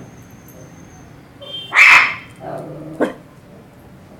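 A dachshund barks once, loud and short, about two seconds in, followed by a quieter, lower sound and a brief click.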